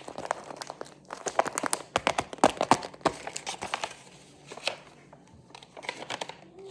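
Plastic squishy packaging crinkling as it is handled and pulled open, in quick crackles that are busiest between about one and three seconds in.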